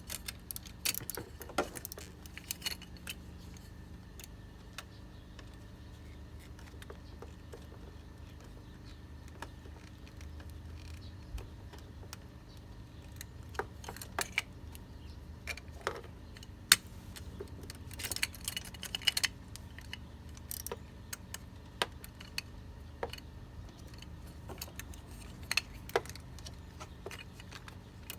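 Scattered light metallic clinks and clicks of hand tools and battery-terminal hardware being handled, at irregular intervals, over a steady low hum.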